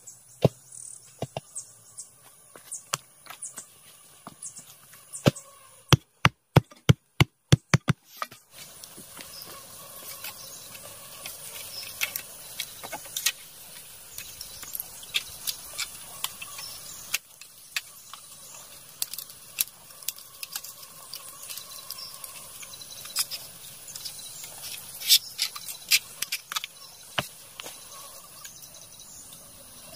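Steady high insect drone with scattered sharp taps and knocks. About six seconds in comes a quick run of about ten knocks, roughly four a second.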